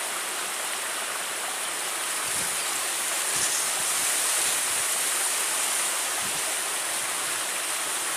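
Flowing river water: a steady rushing hiss.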